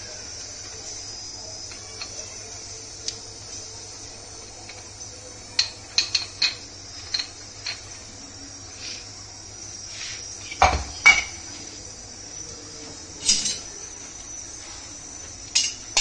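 Steel mixer-grinder jar knocked and tapped against the rim of a steel kadhai to shake out ground coriander: a scattered series of sharp metallic clinks and knocks, the loudest a pair about 11 seconds in, over a faint steady hiss.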